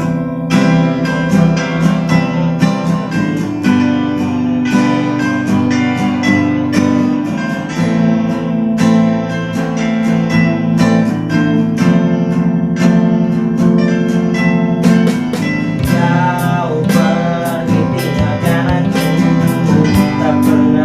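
Steel-string acoustic guitar strummed in steady rhythmic chords. A man's singing voice comes in over it in the second half.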